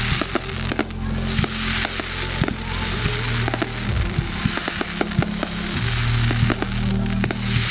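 Fireworks going off in quick, irregular bangs and crackles, over loud music with a steady bass line.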